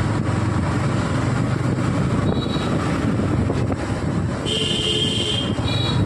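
Yamaha MT-15's single-cylinder engine running steadily in third gear at low speed, heard from a helmet-mounted camera with some wind noise. Short high-pitched tones sound a few times, about two seconds in and again from the middle to near the end.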